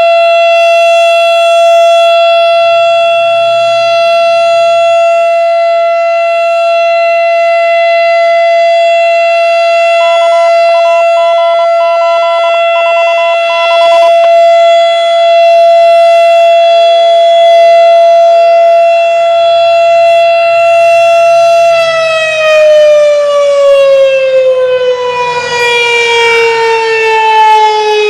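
Darley STH-10 outdoor warning siren sounding a steady, loud full-alert tone, then about 22 seconds in it winds down, its pitch falling steadily.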